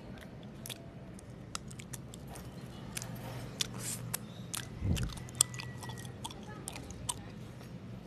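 Close-miked chewing of homemade mochi ice cream: irregular moist clicks and smacks of the mouth working the soft rice dough, with a low thump about five seconds in.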